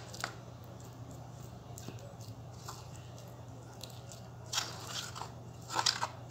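Metal spoon stirring and scraping a thick, sticky cornstarch-and-lemon-juice paste in a bowl: a few faint clicks at first, then louder scrapes in the last two seconds, over a low steady hum.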